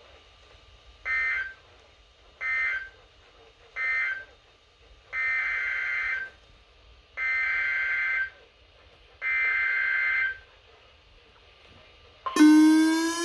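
Emergency Alert System SAME data bursts: three short buzzy screeches at about one-second spacing, the end-of-message code closing a severe thunderstorm warning. They are followed by three longer one-second bursts, the header code of the next alert. Near the end a loud, sweeping alert tone begins.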